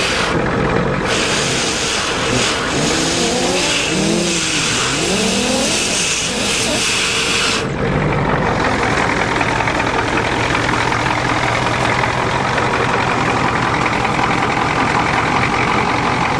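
Ford diesel truck engine running steadily with no exhaust system or muffler fitted, shortly after starting from sitting two months. A high hiss over it cuts off suddenly about halfway through.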